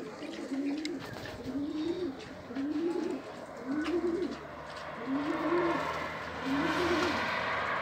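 Racing pigeons cooing, a low arching coo repeated about once a second. From about halfway a rushing noise swells underneath and is loudest near the end.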